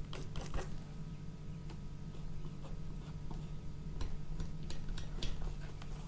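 Small irregular scrapes and clicks of a steel palette knife mixing oil paint on the palette and working it onto the canvas, over a low steady hum.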